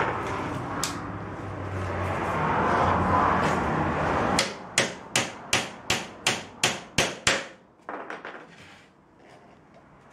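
Steady background noise, then a quick run of about nine sharp hammer blows, about three a second, starting a little before halfway through and trailing off into a few lighter taps.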